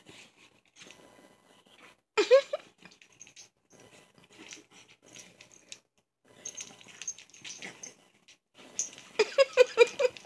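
Yorkshire terrier giving short vocal sounds: one sharp call about two seconds in and a quick run of short barks near the end, with soft rustling of bedding in between.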